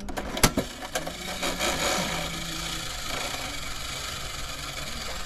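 Slot machine being played: a couple of sharp clicks, then a steady mechanical whirring rattle for about four seconds that stops near the end.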